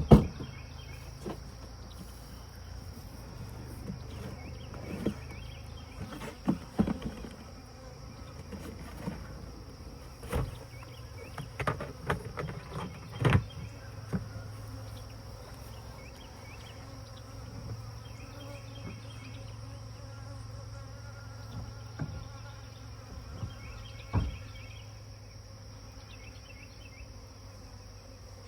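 Honeybee swarm buzzing steadily as a low hum, with scattered sharp knocks and clicks, a cluster of them in the middle and one more near the end.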